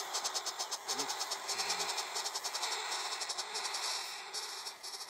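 Woodpecker nestlings calling from inside the tree-hole nest: a continuous, rapidly pulsing high chitter of begging calls.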